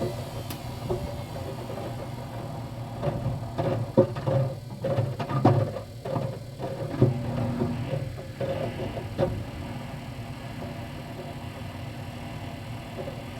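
GE LSGE09E09M front-loading washer-dryer running on its wool cycle, its motor humming steadily. Between about 3 and 9 seconds in, irregular knocks and thumps come from the vacuum-cleaner parts tumbling in the drum.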